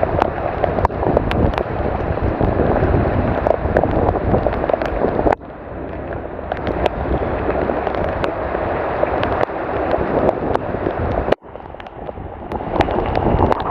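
Rain falling steadily, a dense hiss full of crackling drop impacts. The sound cuts out abruptly twice, about five and eleven seconds in, and picks up again each time.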